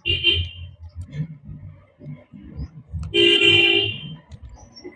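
A horn tooting twice, a short toot and then a longer one lasting about a second, over low knocking and rumbling.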